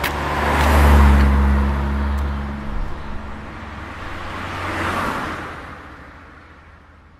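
A car driving past, its engine hum loudest about a second in. A second, softer swell of road noise comes around five seconds, then the sound fades away.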